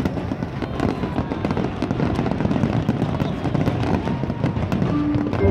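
Fireworks crackling and popping in a dense, continuous stream of quick bursts.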